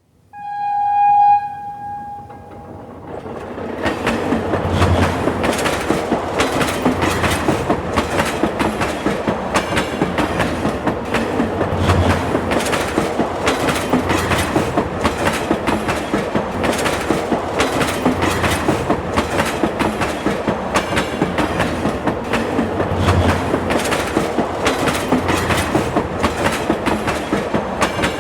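Subway train sounding a single-tone horn for about two seconds. It then runs on with a steady rumble and a fast, regular clickety-clack of wheels over the rails.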